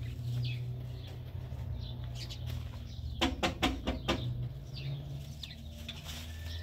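A quick burst of bird wing flaps, about six sharp claps in a second, over scattered small bird chirps and a steady low hum.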